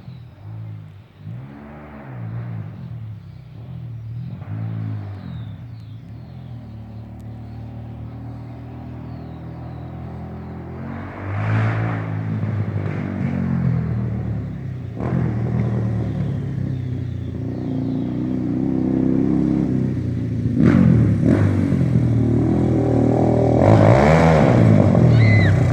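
Arctic Cat DVX 400 race quad's single-cylinder four-stroke engine revving in repeated blips, running louder and harder through the second half.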